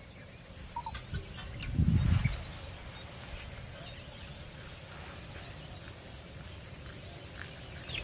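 Steady high-pitched drone of insects, an even pulsing buzz, with a low muffled bump or rumble about two seconds in.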